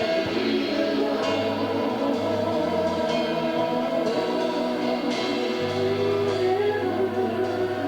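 Church worship music: a choir or congregation singing over instrumental accompaniment with a steady bass line and sustained notes.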